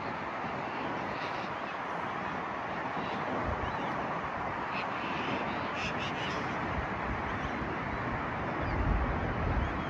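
Steady outdoor wind and background noise, with wind buffeting the microphone a few times, loudest near the end, and a few short bird calls about six seconds in.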